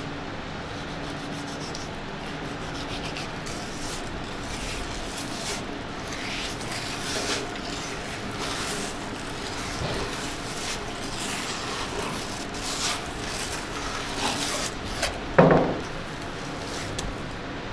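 Knife blade scraping and rubbing along a raw salmon fillet on a plastic cutting board in irregular strokes as the fillet is trimmed. Near the end comes a short, louder squeak that falls in pitch.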